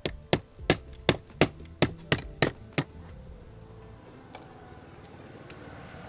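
About nine sharp metallic clicks, evenly spaced at roughly three a second, from a screwdriver working on an Airstream door's deadbolt assembly. They stop a little under three seconds in, leaving a faint low hum.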